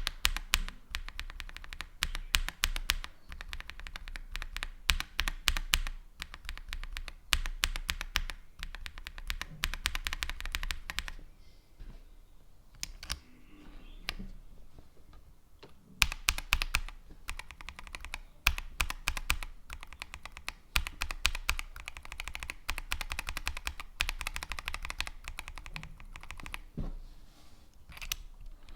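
Typing on a mechanical keyboard fitted with Kailh Box linear switches: fast, dense key clacks. The typing thins out to a few soft clicks between about 11 and 16 seconds in, then picks up again.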